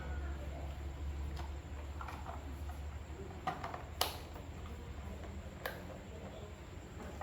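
A few sharp clicks or taps, the loudest about four seconds in, over a steady low hum that fades somewhat partway through.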